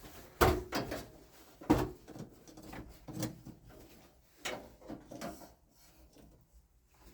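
A series of irregular knocks and clunks, such as parts or tools being handled, the loudest about half a second and just under two seconds in.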